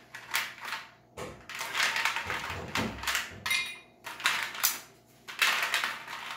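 Ice cubes clattering and rattling as a hand rummages through a plastic container of ice, in several separate bursts.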